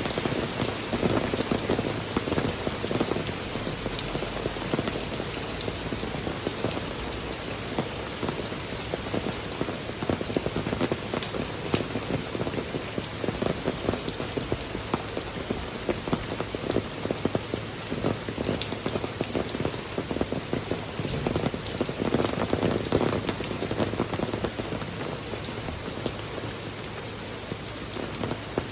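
Heavy rain pouring steadily, a dense hiss of drops striking a surface with countless small patters, swelling a little louder twice.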